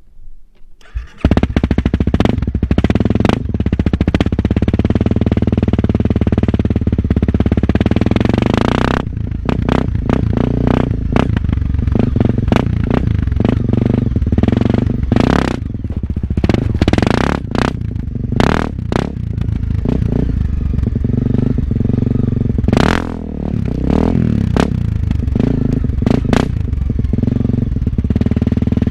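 Honda CRF250L's single-cylinder four-stroke engine through an FMF aftermarket exhaust, ridden off-road. After a quiet first second it comes in loud and runs steadily. From about nine seconds in its pitch rises and falls with the throttle, amid frequent short knocks and rattles.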